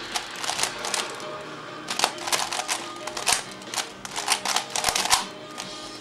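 A Type C DIY 3x3 speedcube clacking as its layers are turned fast during a speedsolve. The turns come in rapid bursts of clicks with short pauses between them.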